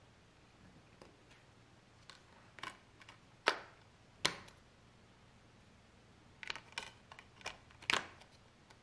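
Blu-ray discs being pressed onto the plastic centre hubs of a steelbook's disc tray, making sharp plastic clicks as they snap into place. There are two loud clicks around three and a half and four seconds in, then a quick run of clicks near the end.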